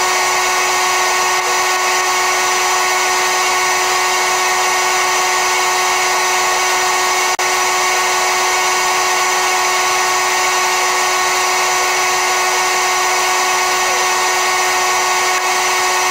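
Electric air compressor running, a steady unchanging drone of several tones.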